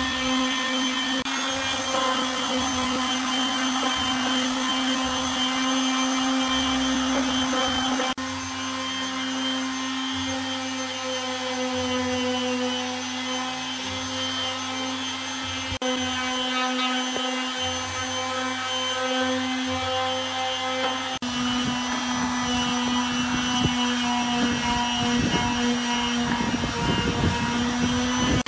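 Electric random-orbit sander running with a steady motor hum, its pad scrubbing over pallet wood. In the last few seconds the sanding turns rougher and more irregular as the pad works the bench legs.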